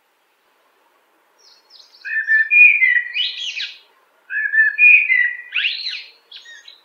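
Common blackbird singing two phrases. Each is a low, fluty warble that ends in a higher, squeaky twitter; the first starts about two seconds in and the second about four seconds in.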